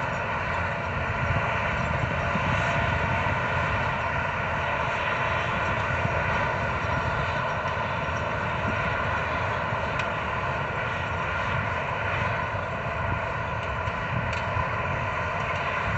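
Potato harvesting machinery running steadily: a constant engine drone with several held tones over a rumbling mechanical noise, unchanging throughout.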